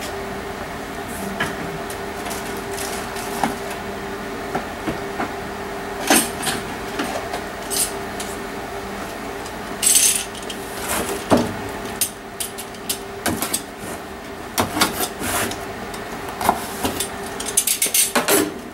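Small parts being handled: scattered clicks and knocks of plastic and metal pieces, and a short rustle about halfway through, over a steady hum.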